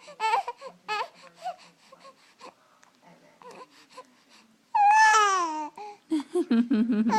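Baby fussing and crying: short whimpers at first, then one loud, long cry about five seconds in that falls in pitch, and a few short low sounds near the end.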